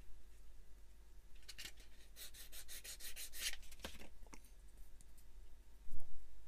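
Hand sanding of a small plastic model-kit part: quick back-and-forth scraping strokes, several a second, which come in a run about one and a half seconds in and are followed by a few light clicks. A single sharp knock comes near the end.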